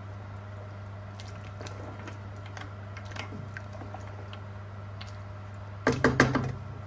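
Wooden spatula stirring a thin meat broth in a steel pressure-cooker pot: soft scrapes, knocks and liquid sloshing over a steady low hum. About six seconds in comes a short cluster of louder knocks and clatter of the spatula against the pot.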